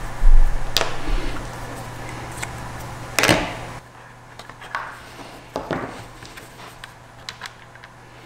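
Handling noises of a plastic food dehydrator base being worked on at a bench: a heavy low thump just after the start, a sharp knock a little past three seconds, and scattered lighter clicks and knocks. A steady hum underneath cuts off about four seconds in.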